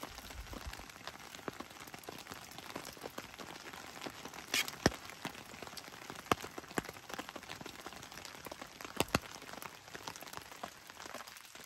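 Steady rain falling on a tarp overhead, a constant patter with scattered drips. A few louder clicks stand out, about halfway through and again near the end.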